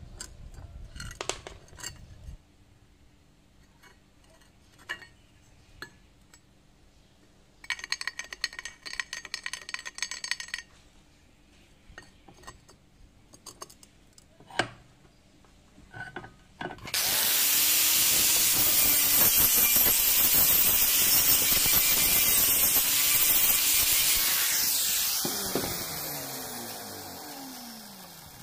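Angle grinder grinding steel, a loud steady hiss over the motor's hum, then spinning down with a falling whine near the end. Before it come scattered light clicks and a crackling burst of about three seconds.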